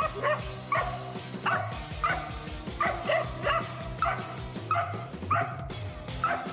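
A dog barking over and over in short, high barks, roughly one every half second to second, over background music.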